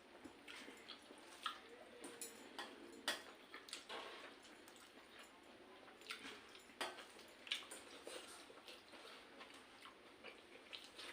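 Faint, irregular small clicks and smacks of people eating pakhala, rice soaked in water, with a few louder clicks scattered through.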